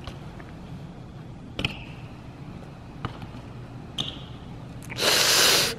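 BMX riding: a few sharp clicks and knocks, some with a short metallic ring, then a loud rushing, scraping noise about five seconds in that lasts under a second.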